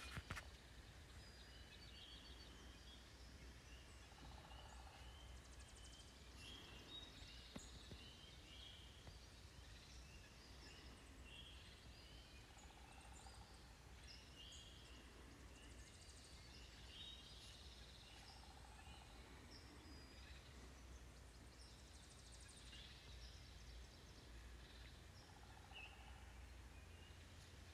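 Faint morning birdsong: many short, high chirps and calls from several birds overlapping throughout. A lower short call sounds four times, over a steady low rumble.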